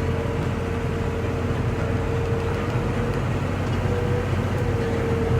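Heavy farm machinery running steadily: a low engine drone with a thin, steady whine over it that breaks off briefly after about three seconds and comes back.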